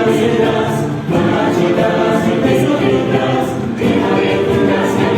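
Choir singing unaccompanied in sustained, held chords, with short breaks between phrases about a second in and again near four seconds.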